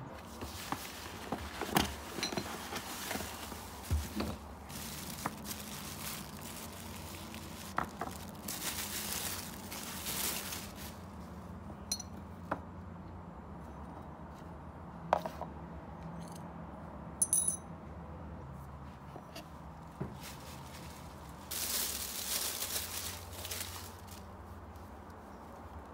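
Light clinks and knocks of kitchenware being handled and set down, with two stretches of noisy hiss about two seconds long, one a third of the way in and one near the end.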